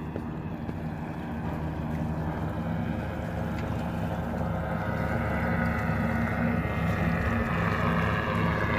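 Propeller engine of an approaching seaplane, a steady drone that grows gradually louder, with its higher engine tones building in the second half, over wind and water noise.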